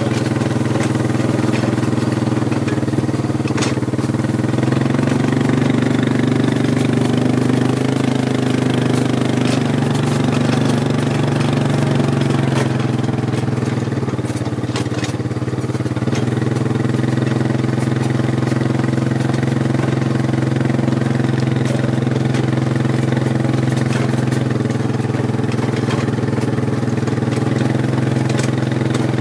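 Engine of the vehicle towing a Hot Heels mechanical roping dummy, running steadily, its pitch rising and falling a little as it speeds up and eases off.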